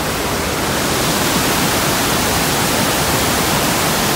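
Iguazu Falls cascade pouring down in a loud, steady, unbroken rush of water.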